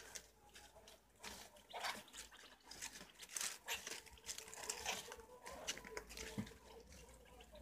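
Faint scattered squeaks, rustling and nibbling from a group of preás (wild cavies) feeding on leaves and vegetable scraps.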